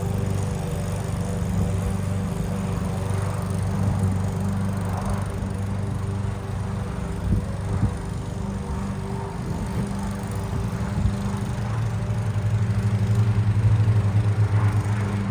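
Lawn mower running steadily, with a few short knocks about halfway through; its hum grows louder and pulses near the end.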